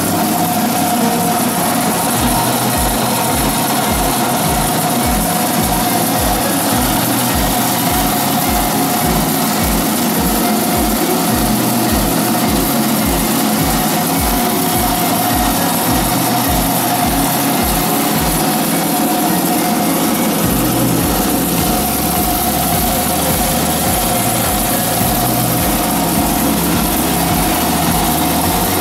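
Electric flower-stem leaf-and-thorn stripping machine running steadily, its motor and spinning stripper giving a constant whirring hum with a steady tone.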